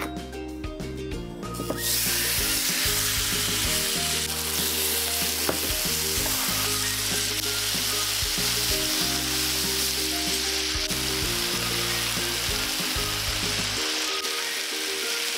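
Chili-marinated black pork put into a hot oiled wok about two seconds in, then sizzling loudly and steadily as it is stir-fried.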